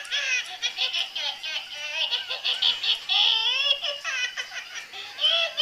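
A baby laughing in a run of short, high-pitched bursts.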